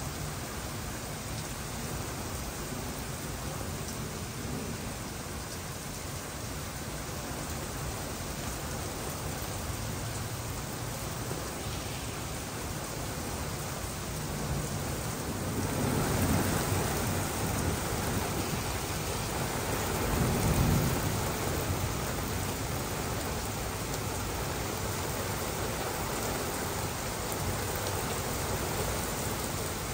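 Heavy rain pouring steadily, growing heavier about halfway through. Thunder rumbles low twice around the middle.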